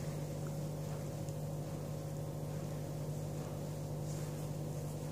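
Steady low hum with a constant pitch, like a motor or appliance running, unchanging throughout.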